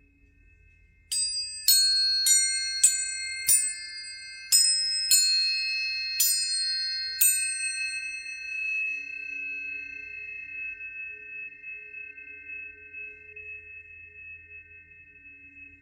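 Planetary tuning forks struck about nine times in quick succession, each strike a bright metallic ping with high overtones, leaving a chord of steady ringing tones that slowly fade out.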